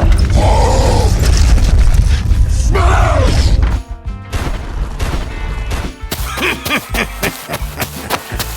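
Background music and sound effects. A heavy booming rumble with two short pitched swoops cuts off abruptly after almost four seconds, followed by a quicker run of sharp knocks and clicks.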